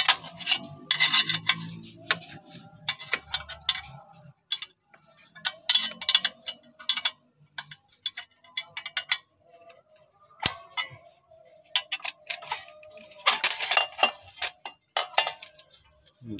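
Bursts of metallic clicking and clinking as a car's clutch pressure plate is unbolted with a socket wrench and worked off the flywheel, with clusters about a second in, around six seconds and again near the end.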